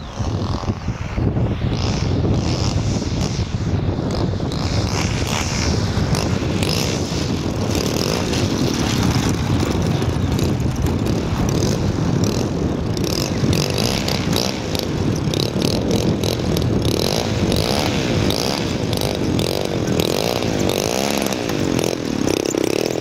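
Giant-scale RC Spitfire's DLE 35cc single-cylinder two-stroke petrol engine running at low throttle as the model lands and rolls on grass, with a steady rumble and, in the second half, a pitch that wavers up and down with the throttle.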